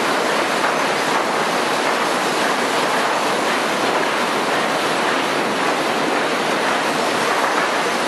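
Steady, even din of sawmill lumber-handling machinery running, as chain transfers carry sawn boards, with no single knock or tone standing out.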